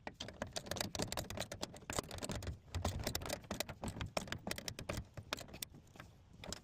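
Rapid, irregular light clicks and rattles of hand tools and metal hardware as the last mounting screw goes in. No motor or drill whine is heard, and the clicking thins out about five and a half seconds in.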